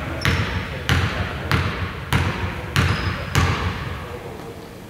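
A basketball is bounced on a hardwood gym floor six times at an even, unhurried pace, each bounce ringing briefly in the hall. This is the shooter's dribble before a free throw. The bouncing stops about three and a half seconds in.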